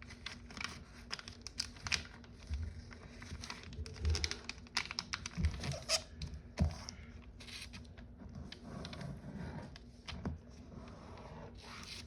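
Sheet of foil origami paper being folded and creased by hand, giving irregular crinkling and crackling rustles.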